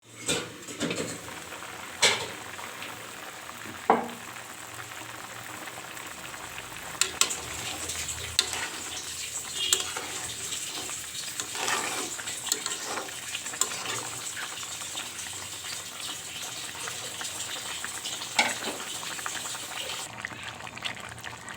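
Chicken curry sizzling in a pan as it is stirred with a spoon, with sharp clinks of the spoon against the pan now and then, loudest about two, four and eighteen seconds in.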